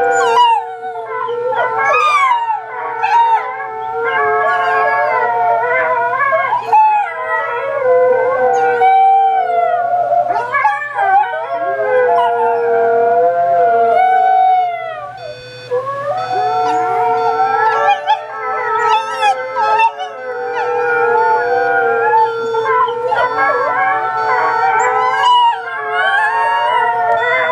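Wolf hybrid puppy howling again and again in long howls that rise and fall in pitch, set off by an alarm clock that sounds beneath them.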